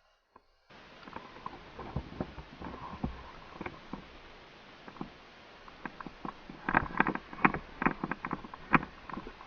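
Steady hiss with scattered sharp clicks and knocks during indoor airsoft play, thickening into a quick run of clicks about seven seconds in.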